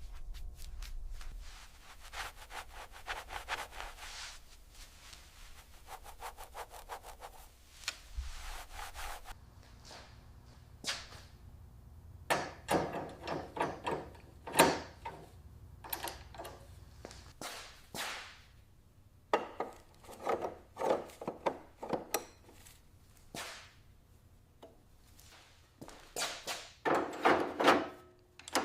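Quick repeated rubbing strokes, like hand sanding or scrubbing, for the first nine seconds or so, then scattered clicks, taps and knocks of hand work on parts, louder near the end.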